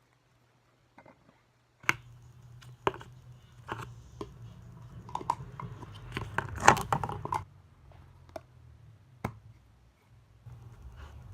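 Slime being squeezed and worked by hand: irregular sharp clicks and wet crackles, starting about two seconds in and thickest a little past the middle.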